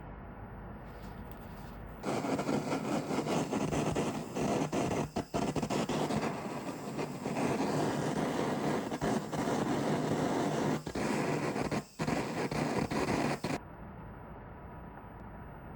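An electric kitchen appliance motor, such as a hand mixer or blender, switches on about two seconds in and runs loudly and steadily for about eleven seconds, dipping briefly twice, then switches off abruptly.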